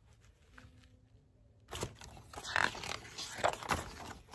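Page of a picture book being turned by hand: paper rustling and scraping, starting a little under two seconds in and lasting about two and a half seconds.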